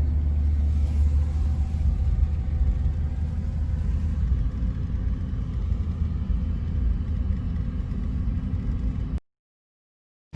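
Steady low rumble that cuts off to dead silence about nine seconds in.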